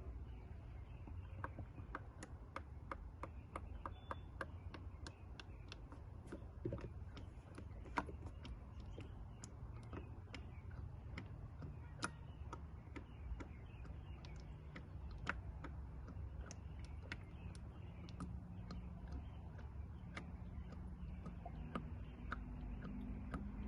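Faint irregular light clicks and ticks, a few a second, over a low steady rumble, as fresh engine oil is poured through a funnel into the Mercedes S600's V12.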